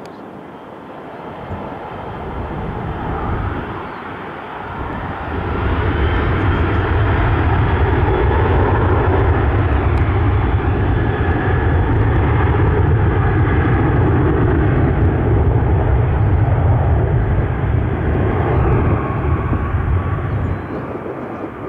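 Airplane engines passing close by: the noise builds over the first few seconds, stays loud with a slowly shifting whine, and falls away near the end.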